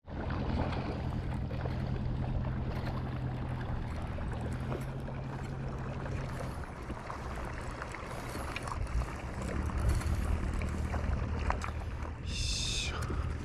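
A boat engine running steadily, with water and wind noise around it; a brief high-pitched sound comes near the end.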